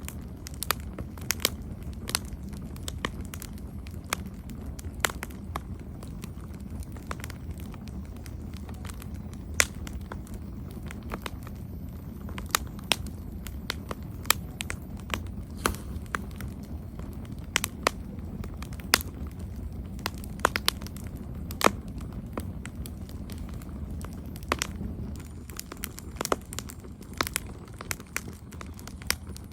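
Campfire of burning wood crackling, with sharp, irregular pops over a steady low rumble of the flames.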